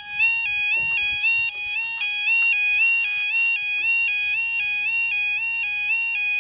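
Level crossing audible warning alarm sounding steadily, an electronic two-tone alternating between two pitches over and over, the warning that a train is approaching and the barriers are coming down.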